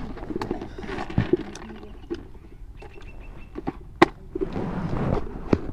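Scattered small clicks and knocks of cups, jars and lids being handled on a street vendor's cart, with one sharp click about four seconds in.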